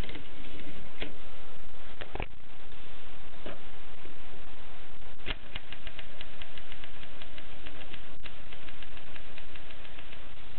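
Groma Kolibri portable typewriter in use: a few separate key strikes, then from about halfway a quick, even run of clicks, over a steady hiss.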